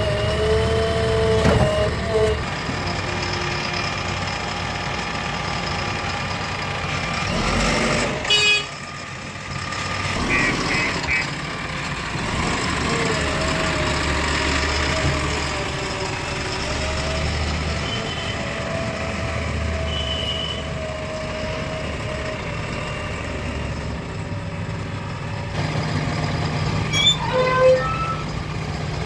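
Diesel engines of a JCB 3DX backhoe loader and farm tractors running steadily under work, with a quick run of three short beeps about ten seconds in and a few short higher tones near the end.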